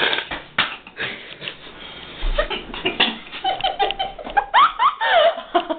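Laughing in breathy bursts, rising into high-pitched squeals near the end, during the cinnamon challenge with a mouthful of cinnamon powder.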